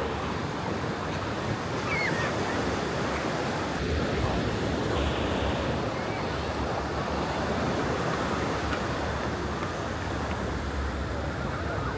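Ocean surf washing steadily onto a beach, with gusts of wind on the microphone adding a low rumble at times.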